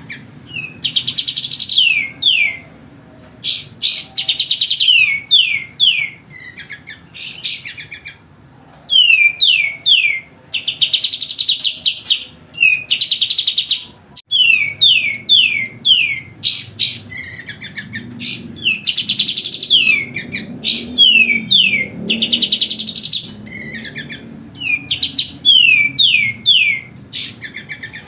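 Kapas tembak songbird singing loudly and without pause: fast runs of sharp, downward-sliding whistled notes in bursts of a second or two, broken by short gaps, with a faint low hum underneath.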